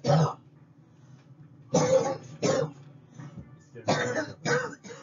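A person coughing: a pair of short coughs about two seconds in, then a run of a few more near the end.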